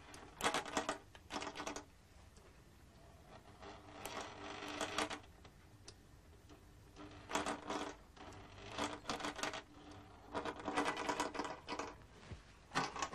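Stepper-motor-driven mechanism running in a series of short bursts of rapid clicking with a motor hum, each burst a second or less, with short pauses between.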